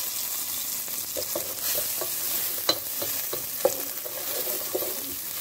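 Diced onion sizzling in melted butter in a pot while a wooden spoon stirs it, with a few sharper knocks of the spoon against the pot.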